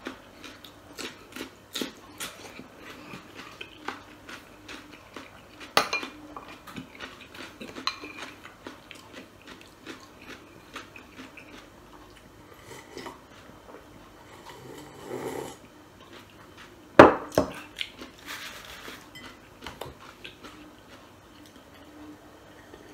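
Close-up eating sounds: chewing with small clicks and clinks of glass dishes and cutlery. There is a short slurp from a glass soup bowl, and a single loud knock of dishware on the table about two-thirds of the way through.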